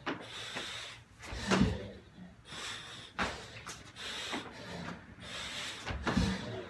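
A man doing burpees on a rubber gym floor: two heavy thuds as he drops to the floor, about a second and a half in and again near the end, with sharper slaps and claps between them and hard, fast breathing throughout.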